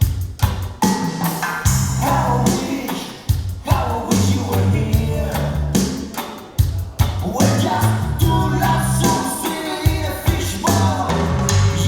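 A song with a singer, a drum beat and a deep repeating bass line, played back over Børresen Acoustics hi-fi loudspeakers driven by Gryphon Audio electronics.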